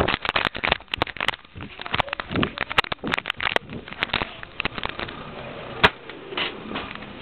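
A rapid, irregular run of sharp clicks and knocks that thins out after about four seconds, with one sharp click near the end.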